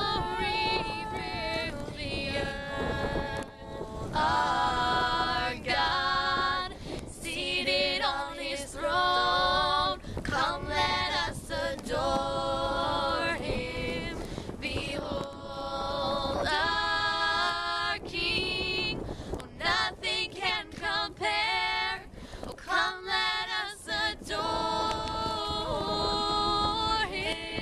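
Three girls singing a cappella in harmony, phrase by phrase with short breaks between lines. Wind rumbles on the microphone underneath.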